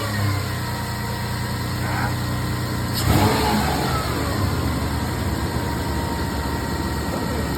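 Toyota 5VZ-FE 3.4-litre V6 running steadily just after starting, with a brief louder moment about three seconds in. It runs on all-new spark plugs fitted to cure a misfire, and its running is called "purrs like a kitten".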